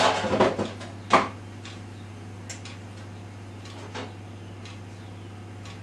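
Thick paste being scraped out of a food-processor bowl with a utensil into a loaf tin: a quick run of scrapes and knocks, one sharp knock about a second in, then a few faint taps.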